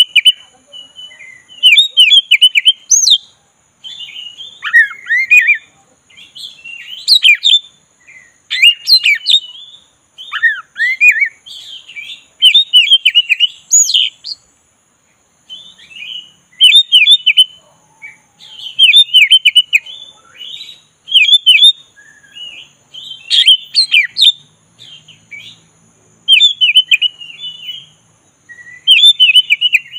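Black-breasted oriental magpie-robin (kacer) singing in short, rapid phrases of whistles, chirps and trills, with brief pauses between them and one longer pause about halfway. A faint steady high tone runs underneath.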